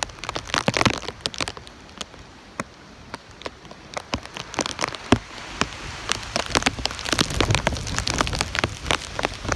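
Tropical-storm rain falling, with many close, sharp, irregular drop taps over a steady hiss. A low rumble of wind buffeting the microphone swells late on.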